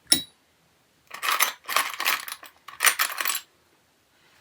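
Small metal pieces clinking and rattling: a sharp click at the start, then three jingling bursts about a second in.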